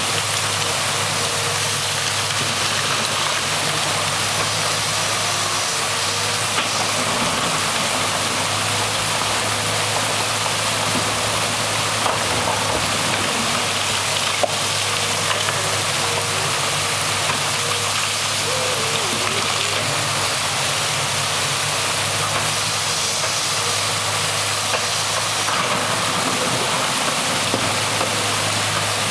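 Steady rush of flowing stream water over rocks, with the low, even hum of a John Deere excavator's diesel engine running underneath. A few faint knocks come through now and then.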